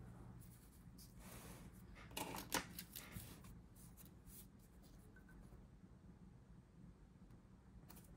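Faint paper sounds of a small sticker being handled and pressed onto a planner page by hand: a few soft rustles and light taps, loudest about two and a half seconds in, then almost nothing.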